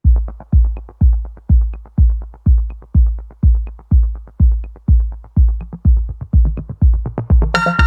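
Electronic dance music: a steady kick-drum beat about twice a second with light hi-hat ticks, and synth chords coming in near the end.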